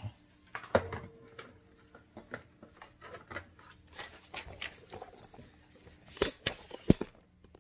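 Handling noise from assembling a plastic shop vacuum: scattered clicks, taps and knocks of plastic parts, with the sharpest knocks about a second in and twice more near the end.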